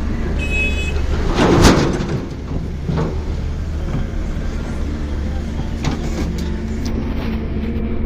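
Excavator's diesel engine running steadily while it digs in mud, with a louder rush of noise about a second and a half in and a few sharp knocks later.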